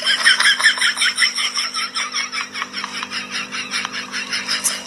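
Cat exercise wheel turning with a cat inside: a rapid, even rattle of about five or six clicks a second over a low steady hum.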